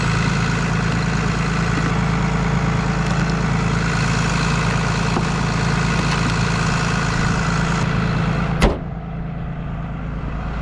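Vehicle engine idling steadily, then a car door slams shut about eight and a half seconds in, after which the engine is heard muffled and quieter.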